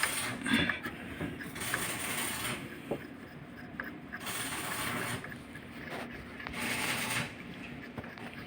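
Ratchet wrench clicking in a few spells of about a second each, as screws are run in on an engine's timing cover.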